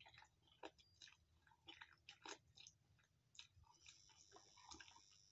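Faint close-up chewing of a mouthful of instant noodles: a scatter of small wet mouth clicks. A faint steady high whine comes in near the end.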